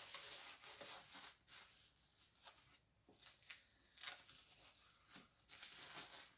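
Faint rustling and crinkling of a disposable diaper being fitted over a first one, with several short, sharp crackles.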